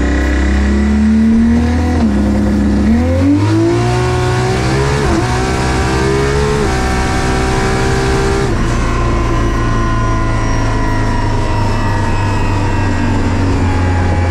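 A big-turbo 2JZ inline-six in an 1800 hp Toyota Supra, heard from inside the cabin, pulling hard through the gears with its pitch climbing and dropping twice at the shifts, under a loud rush of noise. About eight and a half seconds in the rush stops and the engine note falls slowly as the car lifts off and coasts down.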